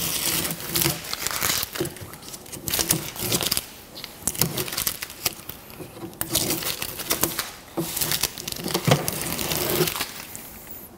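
Blue masking tape being peeled off a motorcycle saddlebag lid and crumpled in the hand: irregular ripping and crinkling, in several spells with short pauses between them.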